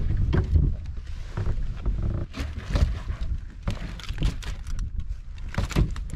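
Wind buffeting the microphone, with scattered knocks and rattles as a freshly landed grouper is handled in a wire-mesh basket on the wooden deck.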